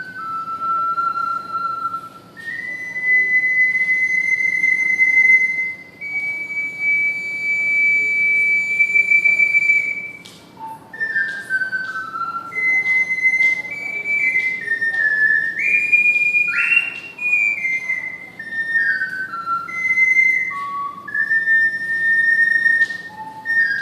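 Ocarina playing a slow, single-line melody of clear, whistle-like notes: long held high notes broken by short falling runs.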